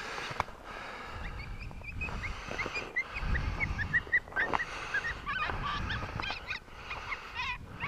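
Many short, high-pitched animal calls overlapping in a chorus, a few each second, with a low rumbling noise around the middle.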